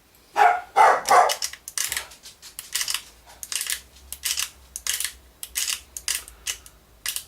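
A dog barking several times in a row, the first two barks about a second in the loudest, then shorter, sharper barks at an even pace.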